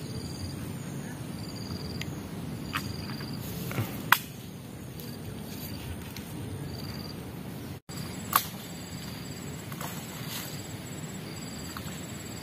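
Insects chirping in short repeated pulses over a low steady rustle, with a few sharp snaps, the loudest about four seconds in.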